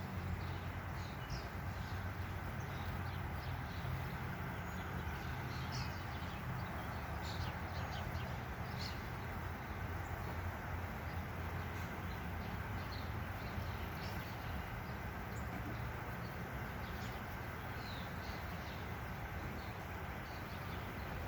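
Honey bees buzzing around an open hive as the frames are worked: a steady drone. Short high chirps are scattered throughout.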